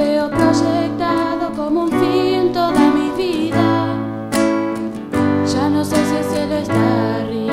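A live song: a female voice sings with vibrato over strummed acoustic guitar and chords on a Yamaha electric keyboard.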